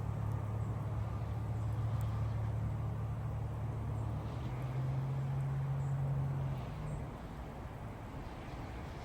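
A steady low motor hum over a rushing hiss. The hum shifts up in pitch about four seconds in and drops away near seven seconds.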